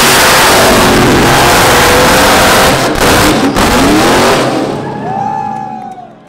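Drift car's engine revving hard while its rear tyres screech in a sustained slide, the engine note rising and falling. The sound fades away from about five seconds in as the car pulls off.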